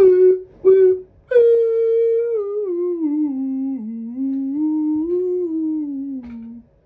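A person humming a short tune: two brief notes, then one long phrase that steps down in pitch, rises a little and falls again, stopping near the end.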